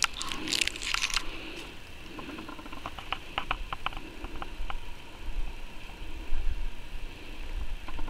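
Close rustling and a quick run of small dry crackling clicks, as a hand breaks off and handles a young pine shoot near the microphone.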